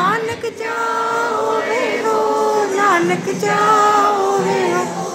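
Sikh kirtan: a group of men's and women's voices singing a shabad together, holding and sliding long notes with few clear words.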